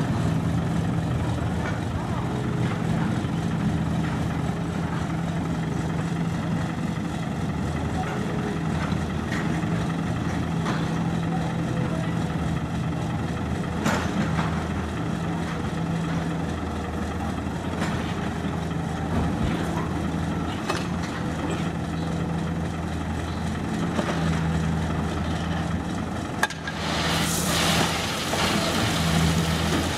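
Hino dump truck's diesel engine running steadily at low revs as the truck creeps forward. A brief hiss near the end.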